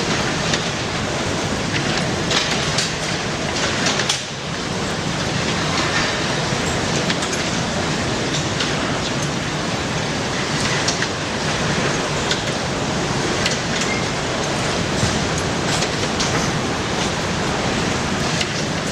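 Steady rushing noise of a strong wind, with scattered sharp ticks and a brief lull about four seconds in.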